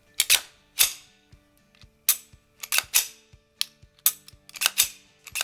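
Pistol slide being fitted onto a Glock 17-pattern polymer frame: a series of sharp metallic clicks and snaps, about a dozen over five seconds, with soft background music.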